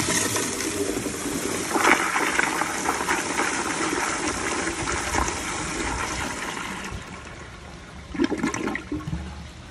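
Kohler Kingston flushometer-valve toilet flushing: a strong rush of water that lasts about seven seconds as the bowl empties and washes clean, then eases off to a quieter refill.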